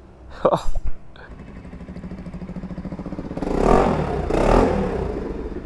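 Bajaj Pulsar NS200's single-cylinder engine running with a steady pulsing beat, revved twice in the middle before settling back. The owner says the engine makes an abnormal noise, which he and the mechanic put down to tappets (valve clearance) out of adjustment.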